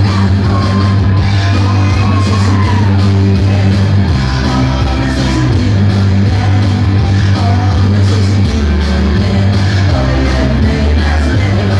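Loud rock music played through a mobile sound system's speakers, with heavy sustained bass and singing or shouting over it.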